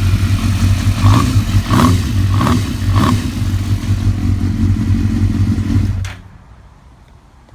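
2006 Suzuki GSX-R1000's inline-four engine idling with the airbox off, blipped four times about a second in, then shut off about six seconds in. No cam chain rattle or ticking: a PSR manual cam chain adjuster has just replaced the failed hydraulic tensioner.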